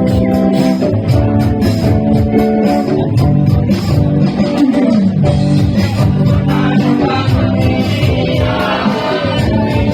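A band playing a song with guitar, and a group of singers joining in partway through.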